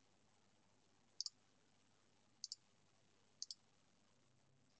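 Three faint computer mouse clicks about a second apart, each heard as a quick pair of ticks, over near silence.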